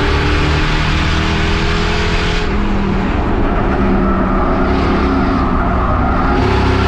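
Race car engine running hard at speed, loud and continuous, with its note shifting about two and a half seconds in and again near the end.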